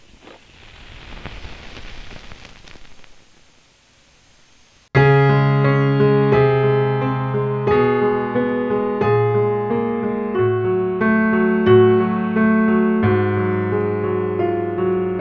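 Music: a keyboard intro of sustained, piano-like chords with notes moving over them, starting suddenly about five seconds in. Before it, a faint rushing noise swells and fades.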